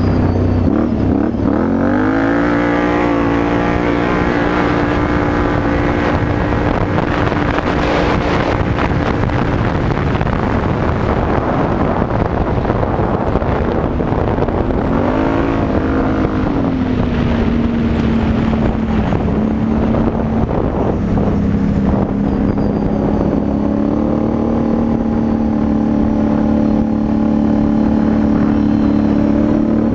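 Can-Am Renegade 850 XXC quad's Rotax V-twin running through a Yoshimura aftermarket exhaust under way. Its revs climb about two seconds in, hold steady, rise and fall around the middle, and pick up again a few seconds before the end.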